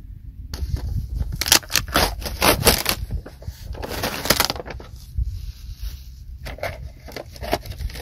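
Cardboard shipping box being opened by hand, with cardboard and packaging crackling and scraping in a quick run of rustling strokes over the first few seconds, then a few scattered rustles.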